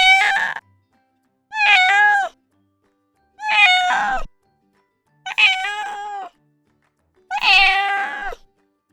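A cat meowing five times, each meow just under a second long and about two seconds apart, with a fairly steady pitch.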